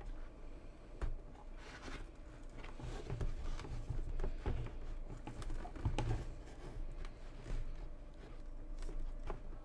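Hands working on a motorcycle helmet's interior and intercom headset parts: irregular rustling, rubbing and small clicks and knocks.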